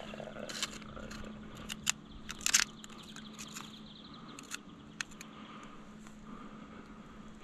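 Knife blade knocking and scraping against wild oyster shells on a submerged log in shallow river water. Several sharp clicks and taps, loudest in a short cluster about two and a half seconds in, growing sparser near the end.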